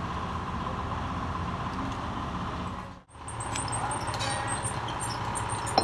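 Steady low rumble and faint hum of workshop background noise, with no clear event in it. It drops out for an instant about three seconds in, then resumes with faint light ticks.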